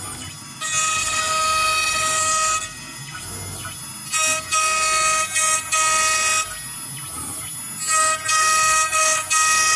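AccTek AKG1212 CNC router's spindle carving lettering into a wooden board: a high, pitched whine with a harsh hiss comes in three loud stretches of about two seconds each as the bit cuts, dropping back to a quieter hum in between.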